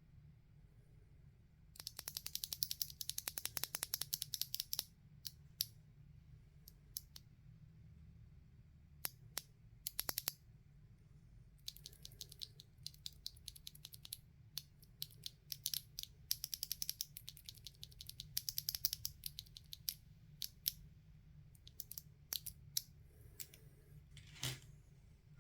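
Typing on a mechanical keyboard with stock, unlubricated Zuoce Rococo tactile switches: fast runs of keystrokes broken up by single key presses and short pauses.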